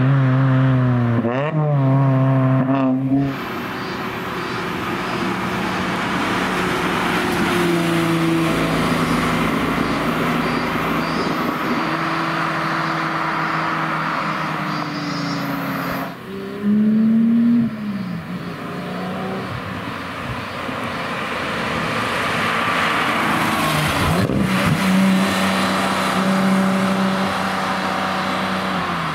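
Sports cars accelerating past one after another. A Mazda MX-5 roadster's four-cylinder engine revs up in steps and cuts off after about three seconds. Then Porsche 911 flat-six engines follow, with a short, louder rising rev about halfway through.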